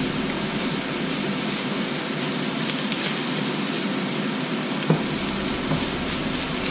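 Rice sizzling steadily in a hot frying pan as it is stirred in, with a single spatula knock against the pan about five seconds in.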